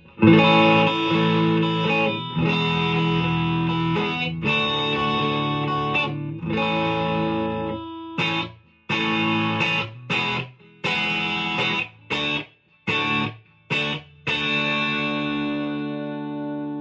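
Epiphone Les Paul electric guitar on both humbuckers, played through a Marshall amp's classic gain channel: distorted, sustained chords, then a run of short chord stabs with silences between them. A last chord is left ringing and fading near the end.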